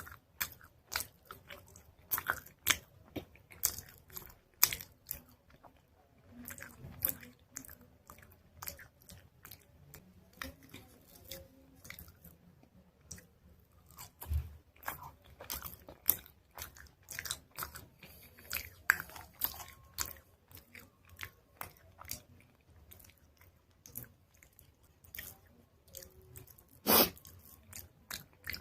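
Close-miked biting and chewing of dried chalk paste: irregular crisp crunches with short pauses between them, and one louder crunch near the end.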